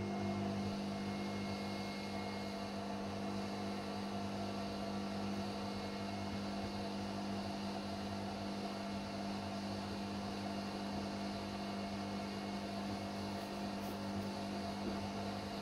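Red 12-volt-to-mains power inverter humming steadily while it powers a small load: a low electrical buzz with many overtones.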